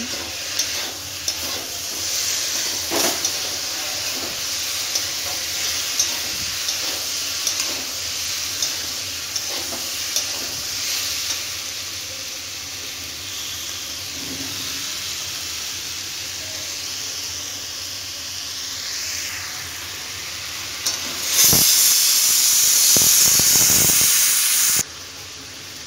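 Potato, onion and tomato bhujia sizzling in a kadhai, with a metal spatula scraping against the pan as it is stirred. About 21 seconds in, a pressure cooker lets out its whistle, a loud hiss of steam lasting about three seconds. It is the dal cooker's second whistle, the sign that the dal is done.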